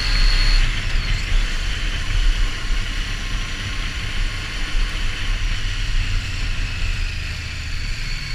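Triumph Street Triple R's inline-three engine running steadily under way, mixed with wind rushing over the camera's microphone.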